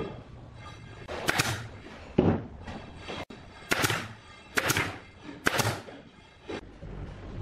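Pneumatic brad nailer firing into wood: four sharp shots, the last three under a second apart, with a couple of duller wooden knocks between them.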